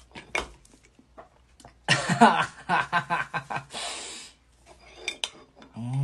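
A spoon clinking against a ceramic mug, with a boy's wordless vocal noises about two seconds in, a short breathy hiss, and a held, hummed note near the end.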